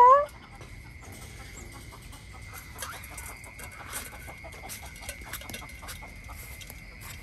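An animal's repeated clucking call breaks off just after the start. Then come faint, scattered clicks and crunches over a steady high hum.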